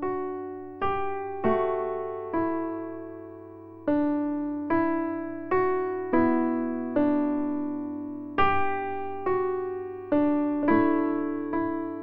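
Background music: soft solo piano, notes and chords struck at a slow, gentle pace, each ringing out and fading before the next.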